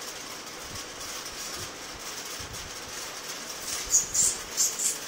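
Puppy gnawing a chewstick: a quick run of four or five sharp crunches about four seconds in, over a steady background hiss.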